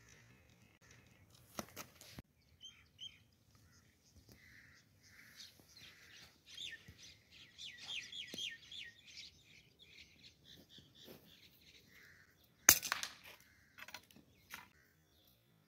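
Small birds chirping in the trees, thickest in the middle. About three-quarters of the way through comes a single sharp crack of a scoped air rifle firing, the loudest sound.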